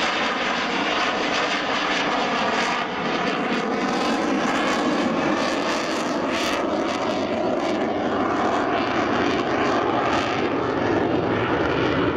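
JAS-39 Gripen fighter's Volvo RM12 turbofan making a steady, loud jet roar during a fly-past, its tone slowly sweeping and shifting as the jet passes and climbs away.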